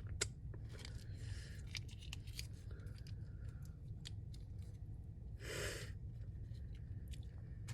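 Close-miked chewing of Popeyes fried food, with many small crunches and mouth clicks over a steady low hum, and a brief hiss about five and a half seconds in.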